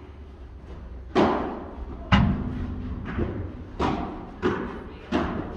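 A padel ball struck back and forth by rackets during a rally, giving about six sharp pops in quick succession, each ringing out in the hall's echo. One heavier knock about two seconds in has a deeper ring, as of the ball hitting the glass wall.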